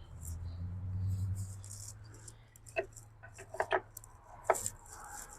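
Sharp clicks and clinks of hand tools and engine parts being handled under the hood, several of them in the second half. Under them a low hum stops about four and a half seconds in.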